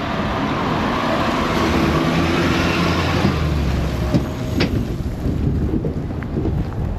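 A motor vehicle passes: its engine hum and road noise swell, then fade away about four seconds in, over wind buffeting the microphone.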